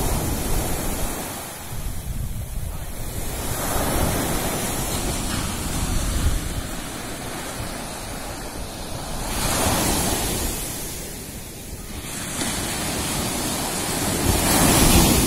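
Small sea waves breaking and washing up a sandy beach, the surf swelling and falling back every five seconds or so, loudest near the end, with wind rumbling on the microphone.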